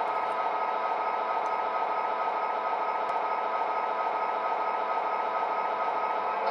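Proto-Sound 3.0 sound system of an MTH Rail King SD60 O scale model locomotive playing its diesel engine idle through the model's small speaker: a steady, even rumble with a thin steady whine over it.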